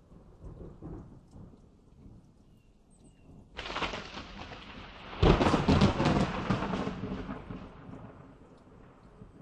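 Thunder in a thunderstorm: a low rumble, then a sudden thunderclap about three and a half seconds in and a louder crack about five seconds in, which rolls away and fades over the next few seconds.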